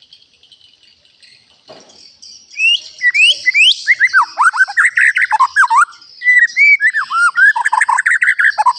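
White-rumped shama singing: a loud run of quick whistled phrases with sharp rising and falling slides. It starts about two and a half seconds in and goes on almost to the end, over a steady high hiss. A soft knock comes before the song.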